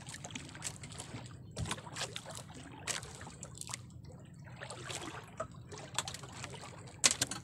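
Sea water lapping and trickling against the hull of a small boat, with a few short splashes or knocks at scattered moments.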